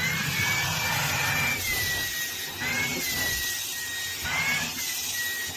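An electric motor running steadily with a whirring noise and a high whine that wavers slightly in pitch.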